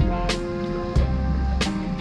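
Background music with sustained instrumental tones and a steady drum beat, a hit about every two-thirds of a second.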